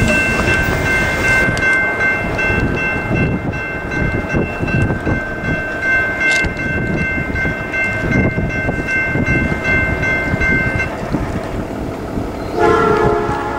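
Horn of an approaching Norfolk Southern freight's lead locomotive, a GE C40-9, sounding in the distance: one long steady three-note chord lasting about eleven seconds over a low rumble. Near the end a louder, fuller horn blast begins as the train draws nearer.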